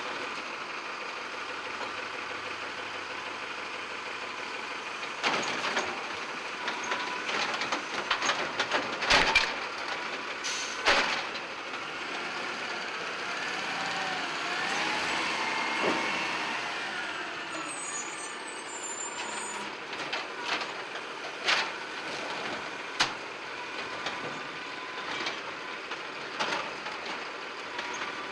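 Scorpion ASL automated side-loader garbage truck working: its engine runs steadily under scattered metallic clunks and knocks as the arm grabs, lifts and empties carts into the hopper. About halfway through, a whine rises and falls.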